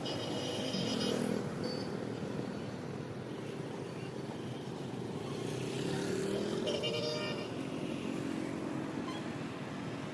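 Busy road traffic: cars and motorbikes running and passing, with engines rising and falling in pitch. High-pitched horns sound near the start and again about seven seconds in.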